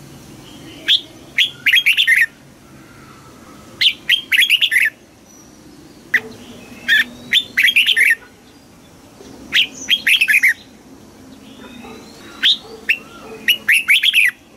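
Red-whiskered bulbul singing: five short phrases of quick, bright chirping notes, one roughly every three seconds.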